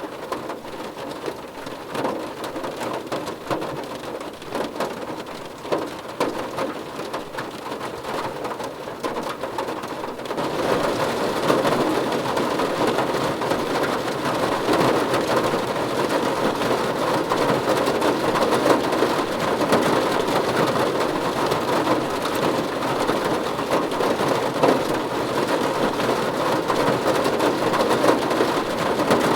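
Heavy rain drumming on a car's roof and windshield, heard from inside the cabin as a dense patter of drops; the downpour gets noticeably louder and heavier about ten seconds in.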